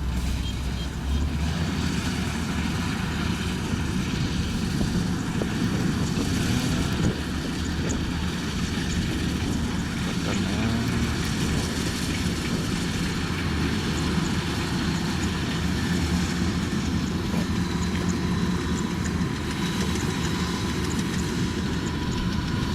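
Combine harvester running steadily as it works through a rice field, a continuous low engine and machinery noise.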